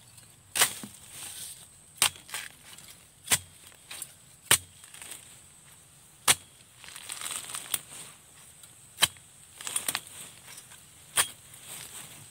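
A machete chopping at the base of a bamboo shoot to cut it free: about nine sharp blows, unevenly spaced, with some rustling of leaves and stalks between them.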